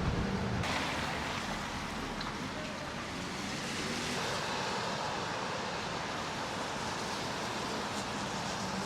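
Street traffic: a vehicle engine's low rumble that fades out in the first second, giving way to a steady hiss of passing traffic.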